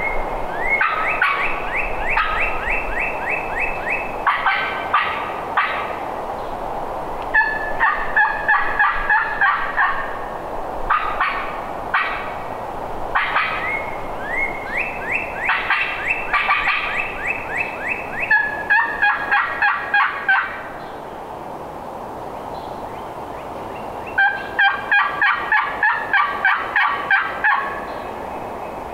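Turkey gobbling over and over, each gobble a fast rattling run of notes, with a pause about two-thirds of the way through.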